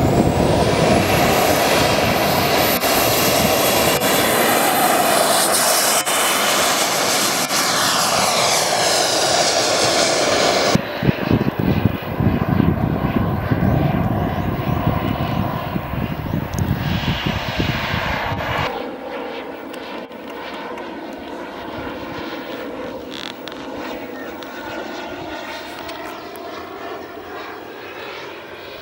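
Twin ATJ-170ti model jet turbines of a giant-scale RC MiG-25 running at high power, with a high whine that rises at the start over a loud rush. The jet takes off and flies past, and the sound grows fainter over the second half as it gets farther away.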